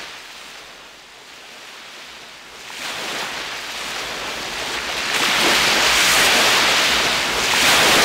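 A toneless rushing noise of wind on the microphone and choppy water. It is fairly soft at first, swells about three seconds in, and is loud from about five seconds on.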